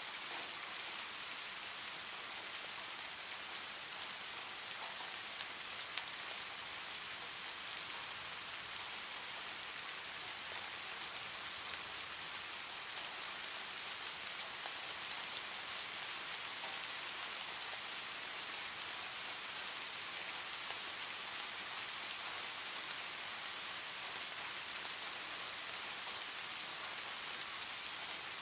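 Steady heavy rain: an even, unbroken hiss with a few louder drops ticking now and then.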